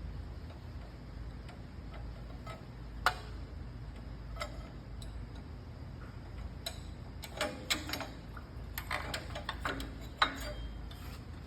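Irregular small metallic clicks and clinks as a bandsaw's guards and their loose fasteners are taken off and handled. The clicks are sparse at first and come more often in the second half, over a steady low hum.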